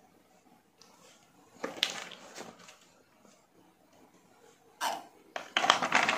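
Hard plastic toys being handled: a short rustle about two seconds in, then louder scraping and knocking near the end as a plastic baby doll is laid into a toy bathtub full of plastic balls.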